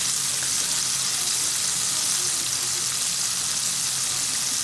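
Karaage (Japanese fried chicken) deep-frying in hot oil: a steady, even sizzle.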